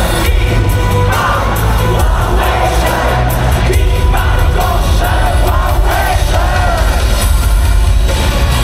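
Live pop-rock band performance over a stadium sound system: a singer over a heavy, steady bass, with crowd voices mixed in.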